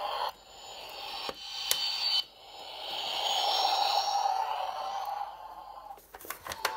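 Electronic engine sound effects played through the small speaker of a Disney Store Millennium Falcon toy, set off by moving the ship around. The hum rises and falls, loudest around the middle, with a few sharp plastic clicks near the end.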